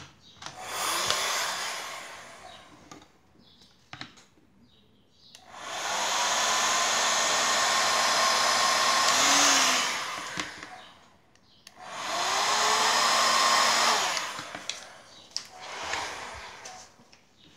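Hot air gun blowing on heat-shrink tubing to shrink it over soldered motor-to-ESC wire joints. It makes a steady rushing hiss in three bursts of a few seconds each, the middle one the longest, and a short faint one near the end.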